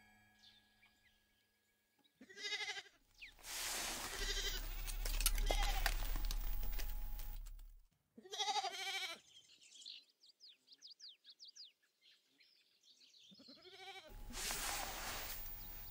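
Sheep bleating three times, about two and a half seconds in, near the middle and near the end, each a short wavering call. Between the calls, wind noise rises and falls, with a few short, high chirps in the middle.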